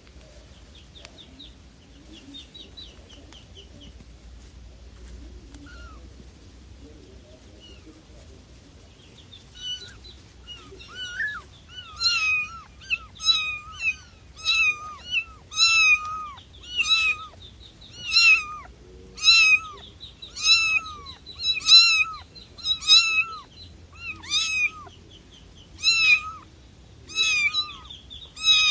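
Cat meowing repeatedly, short high-pitched meows about one a second, each falling in pitch at the end, starting about ten seconds in after a stretch of faint high chirping.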